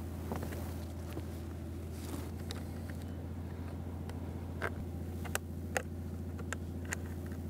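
A steady low hum, with a handful of short sharp clicks in the second half as the case of a trail camera strapped to a tree is handled.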